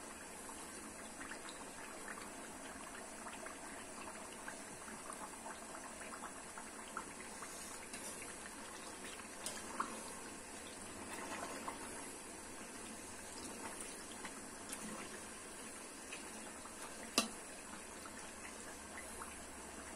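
Pot of salted vinegar brine with diced aubergine simmering and bubbling quietly while a wire skimmer stirs through it, with scattered light clicks of the metal skimmer and one sharper click against the pot about seventeen seconds in.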